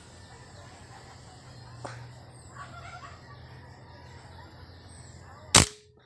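A single sharp shot from a scoped air rifle, about five and a half seconds in and by far the loudest sound.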